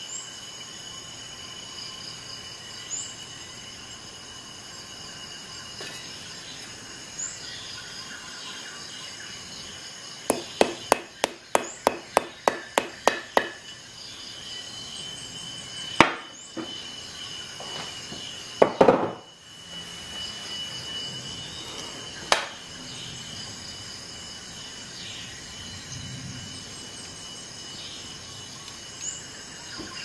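Handling sounds on a glass desktop: a quick run of about ten sharp clicks, around three a second, then separate sharp knocks and a short rough scrape as a glass wine bottle is stood on the glass. A steady high insect trill runs underneath.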